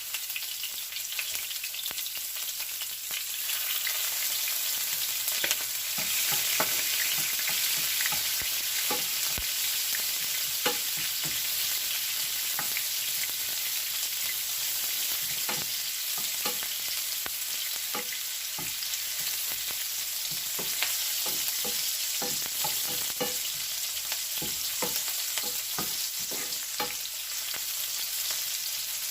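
Minced garlic and sliced onions sizzling in rendered chicken fat in a frying pan: a steady hiss with frequent crackles and pops.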